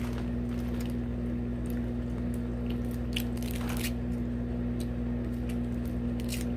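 Short scattered crinkles and crunches of a candy wrapper being opened and candy being chewed, over a steady low electrical hum.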